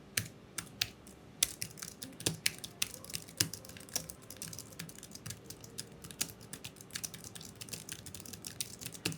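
Typing on a Rexus KL150 low-profile membrane keyboard: a fast, irregular run of light key clicks, with its typing feel much like a laptop keyboard.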